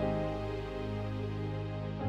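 Soft instrumental background music: slow sustained keyboard chords with a deep held bass, the notes changing right at the start and again at the end.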